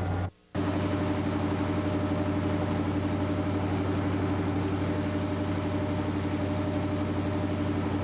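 Steady low mechanical hum, broken by a moment of silence less than a second in where the recording cuts.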